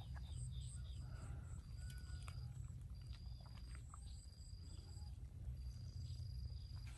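Outdoor wildlife calls: a high, thin call held about a second at a time, repeating several times, with quicker faint chirps and a few clicks over a low steady rumble.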